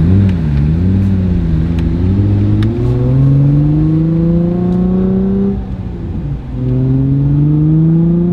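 Nissan 350Z's V6 engine and exhaust heard from inside the cabin with the windows up, accelerating with a steadily rising pitch. The pitch dips briefly about six seconds in, at a gear change, then climbs again.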